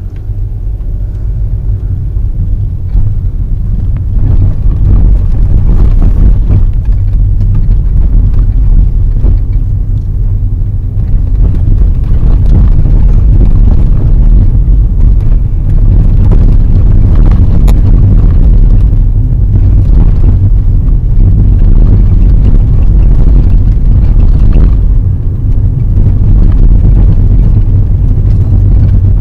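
A car driving, heard from inside the cabin: a loud, low engine and road rumble that builds over the first few seconds and then holds steady.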